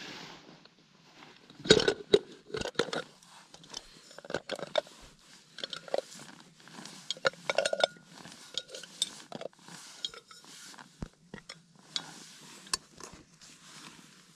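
Metal camping cookware being handled: an aluminium pot and a steel mug clinking and knocking irregularly, with a cluster of sharper knocks about two seconds in and again near the middle.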